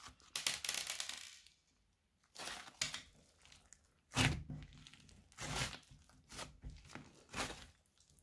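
Hands squeezing, folding and pressing a thick clay slime studded with beads and charms, giving a string of separate crackly, squishy bursts, the first lasting about a second and the later ones shorter.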